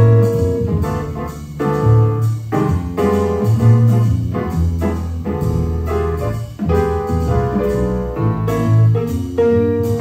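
Jazz piano trio playing: acoustic piano chords and melody over plucked upright bass and a drum kit keeping time on the cymbals.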